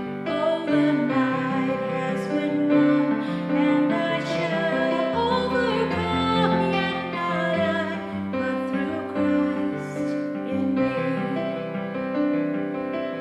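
Music: a slow song with piano accompaniment and a singing voice holding long notes.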